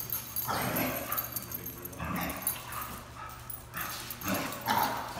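Dogs vocalizing in about four short bouts a second or so apart.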